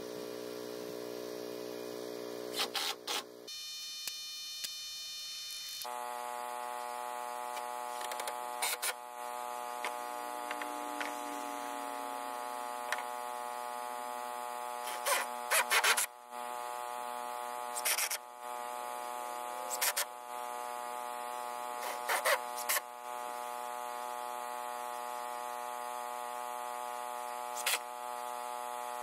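A portable generator hums steadily, with several short bursts of a drill driver driving screws through plywood siding into 2x4 framing.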